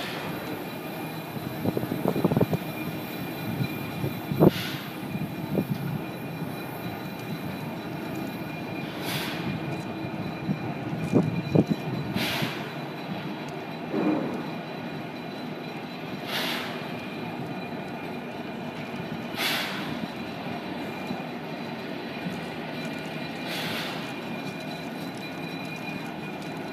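Small steam locomotive being turned on a turntable: a steady mechanical rumble with a faint high whine, short hisses of steam about every three to four seconds, and a few knocks in the first half.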